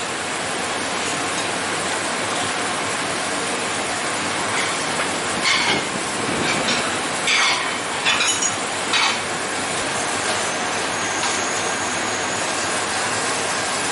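Steady rushing noise of a busy restaurant kitchen, with several short clinks and clatters of plates on a stainless-steel counter between about five and nine seconds in.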